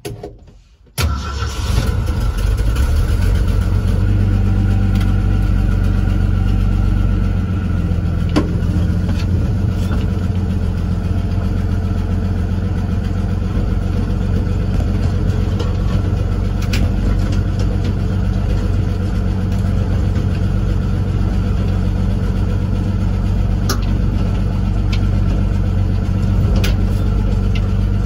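1966 Ford F350's 300 inline-six engine heard from inside the cab, coming in suddenly about a second in and then running steadily as the truck drives.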